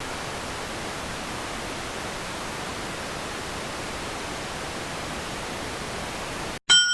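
Steady, even hiss like static that cuts off suddenly near the end, followed by the start of a bright bell-like ding.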